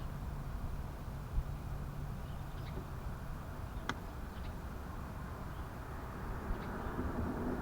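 Steady low background rumble of outdoor ambience, with a single faint click about four seconds in and a few faint, short high chirps.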